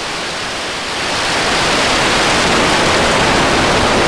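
Rocket engine noise from Starship SN10's three Raptor engines climbing after liftoff: a steady rushing rumble that swells louder about a second in.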